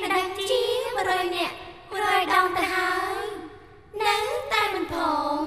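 A high-pitched voice in three short phrases, gliding up and down in pitch, with brief pauses between them and no instruments behind it.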